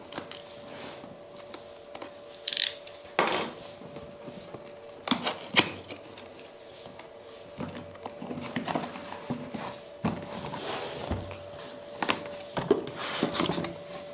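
Cardboard product box being opened and unpacked by hand: the seal cut or torn, then cardboard and packing handled, with scattered knocks and rustles and a short scrape about two seconds in. A faint steady hum runs underneath.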